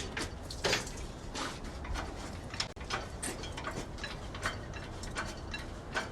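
Irregular light mechanical clicks and ticks, a few a second, over a low steady background.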